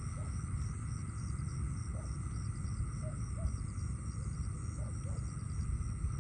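Night insect chorus, crickets among them, calling steadily in a high, rapidly pulsing trill over a constant low rumble, with a few faint short chirps.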